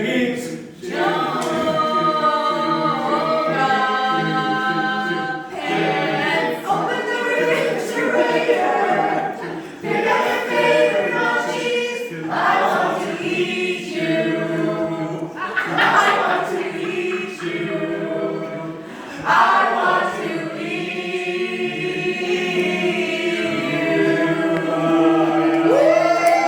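A cappella vocal quartet singing a worship song in close harmony, phrase after phrase with short breaths between.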